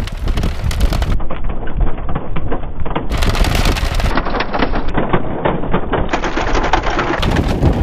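Dense, rapid clicking and clattering of a plastic Bruder toy dump truck rolling over the joints of stone paving, with a low rumble underneath.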